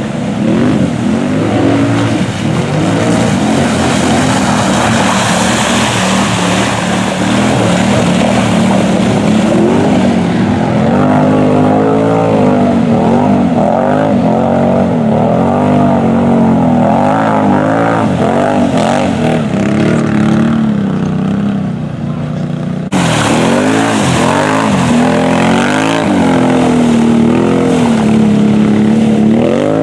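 4x4 ATV engine revving hard under load through mud, its pitch swinging up and down about once a second as the throttle is worked. About two thirds through the sound breaks off abruptly and the revving picks up again.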